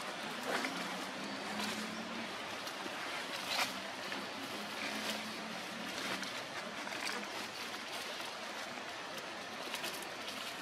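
Steady outdoor background noise: an even hiss with scattered faint clicks, and a faint low hum through the first half.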